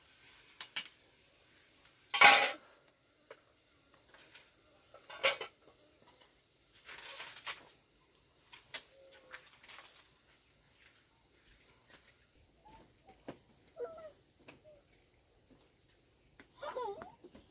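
Insects drone steadily and high-pitched. Over it come scattered knocks and clatters of kitchen utensils and dishes, the loudest a short clatter about two seconds in.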